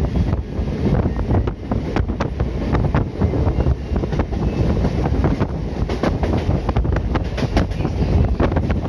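Indian Railways passenger train running, heard from inside the coach: a steady low rumble with frequent irregular clicks and knocks from the wheels on the track.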